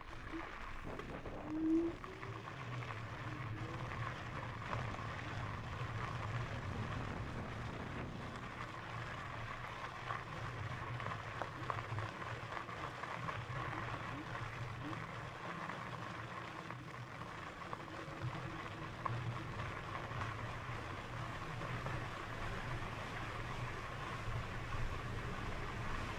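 Lectric XPEAK 2 fat-tyre e-bike riding along a trail: steady tyre noise over the trail surface mixed with wind on the microphone, with a faint whine rising and falling now and then, most noticeable about two seconds in.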